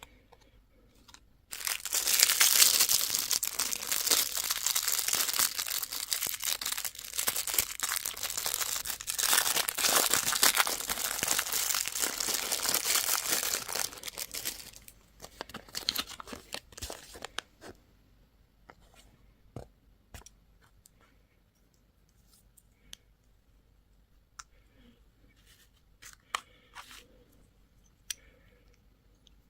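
Candy or toy packaging being torn open and crinkled by hand, a dense crackling tear for about twelve seconds, then scattered small crinkles and clicks.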